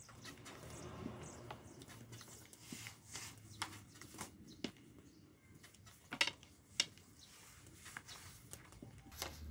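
Scattered light taps and clicks of cooking work at a wood-fired saj griddle, with two sharp clacks a little after the middle. The likely sources are a thin wooden rolling pin working dough on a wooden board and a wooden paddle turning pastry on the griddle.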